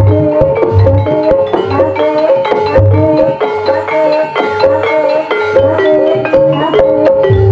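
Javanese gamelan music accompanying Ebeg dance: mallet-struck tuned instruments play a fast, repeating melody over steady low drum beats.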